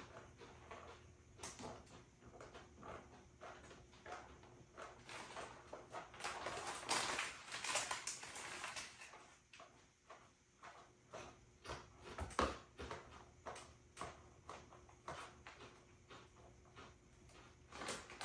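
Potato chips being crunched and chewed, many small crisp cracks, with a foil chip bag crinkling for a couple of seconds about seven seconds in.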